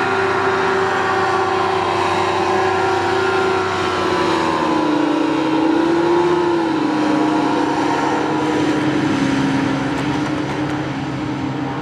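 Small hovercraft's engine and rear ducted fan running at speed, a steady drone whose pitch drops about halfway through as the craft goes by.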